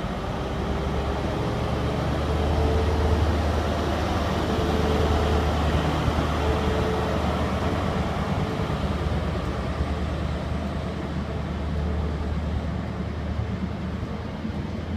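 Class 43 HST power car's diesel engine working as the train pulls away: a deep, steady drone that builds over the first few seconds and then slowly fades as the power car draws off and the coaches roll past.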